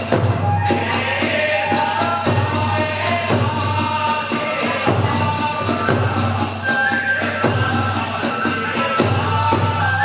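Kagura hayashi music: a drum and small hand cymbals keep up a rapid, steady beat, with a high held melody line bending above it.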